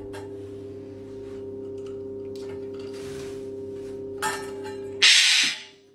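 A loud, harsh squawk from a green parrot about five seconds in, with a shorter one just before it, over a steady low hum of several tones.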